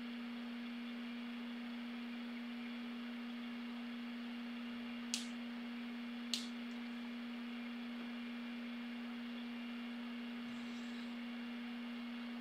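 A steady low hum that holds one pitch without change, with two brief sharp clicks about a second apart about halfway through.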